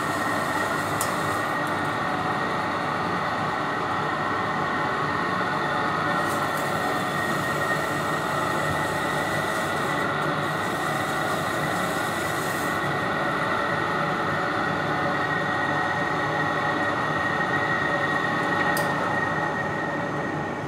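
Steady mechanical whir with a constant high-pitched whine from commercial kitchen equipment, running unbroken, with a few faint clicks; it eases off at the very end.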